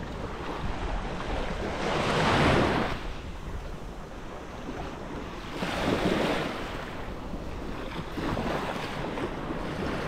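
Sea waves washing onto the beach, with two bigger surges about two and six seconds in, and wind on the microphone underneath.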